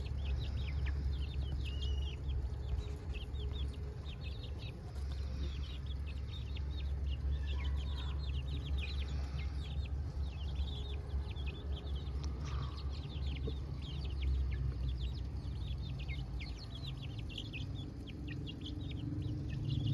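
A flock of chickens calling, with many short high cheeps that fall in pitch throughout, and some clucking. Under the calls runs a steady low rumble.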